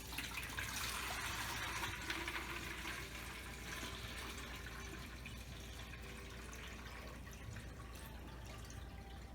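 Water being poured into the water tank of a NOMA 4-litre ultrasonic humidifier: a steady pour, loudest in the first few seconds and then gradually quieter.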